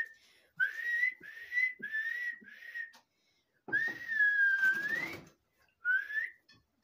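A person whistling to a calf to coax it to drink from a bucket. Four short notes come first, then a longer note that sags and then rises, then one short rising note near the end.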